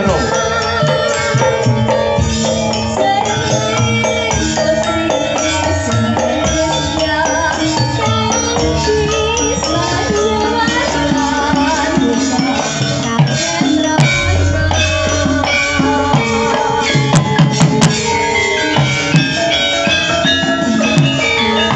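Javanese gamelan ensemble playing in the pelog scale. A female sinden sings over it in the first part, with a wavering voice. About two-thirds through, a deep low note sounds and holds for about two seconds.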